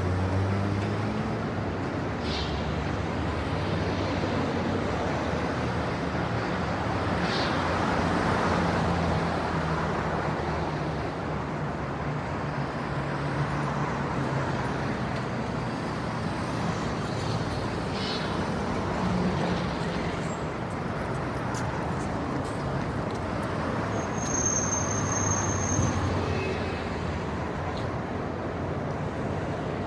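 Light city traffic ambience: a steady low rumble of cars passing on a street. A short high squeal sounds near the end.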